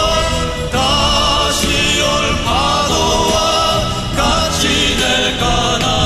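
A Korean song: a voice singing a slow melodic line over continuous instrumental backing.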